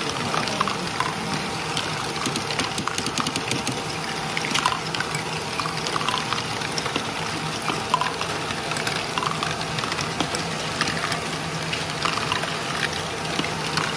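LEGO Great Ball Contraption running: small plastic balls clattering and rolling through stair-step lifts, tracks and bins in a continuous stream of light clicks, over a steady low hum of the machine's motors.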